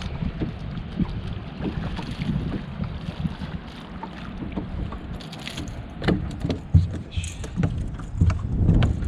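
Strong wind buffeting the microphone aboard a small fishing boat, a rough low rumble, with irregular clicks and knocks that grow louder and more frequent about six seconds in.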